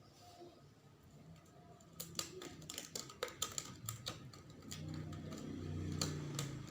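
Irregular sharp clicks and taps start about two seconds in, then a low steady hum builds over the last couple of seconds.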